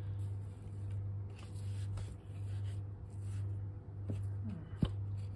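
A spatula scraping and pushing thick, sticky sesame-jaggery paste around a plastic food processor bowl, with soft scrapes and one sharp click near the end. A low hum runs underneath, swelling and fading about once a second.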